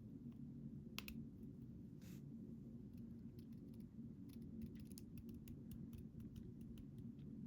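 Faint, sharp metallic clicks and ticks of a pin-tumbler lock being taken apart and its small parts handled. There is a single click about a second in, then a quick run of light ticks through the second half, over a steady low hum.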